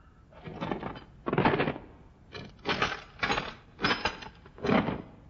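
A series of about seven short, sharp noisy hits, unevenly spaced, each lasting a fraction of a second.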